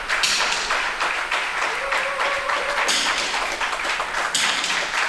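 Spectators in a hall clapping and tapping in a dense, irregular patter, with music playing underneath.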